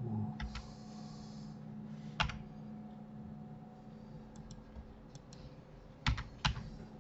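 Computer keyboard keys and mouse buttons clicking while working in 3D software: a click about two seconds in, a few faint ones in the middle and a louder pair near the end, over a faint steady hum.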